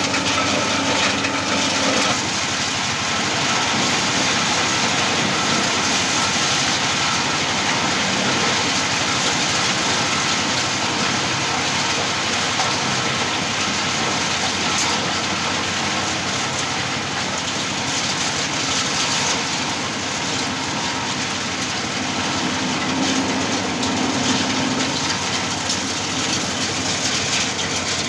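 Engine-driven areca-nut peeling machine running steadily while it husks young oven-dried areca nuts, with a dense, continuous rattle.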